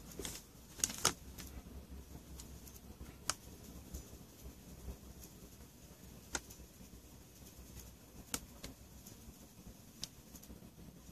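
Scattered sharp clicks over a low steady hum: a close pair about a second in, then single ticks every two seconds or so.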